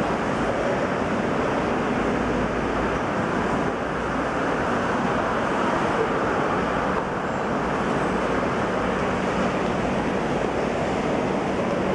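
Steady, dense background noise of a large indoor shopping arcade, with no distinct events standing out.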